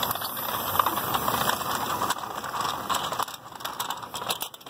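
Street traffic on a wet road: a steady hiss of tyres and engines from passing cars. Clicks and rubbing from the handheld phone being moved sit over it, thickest in the second half.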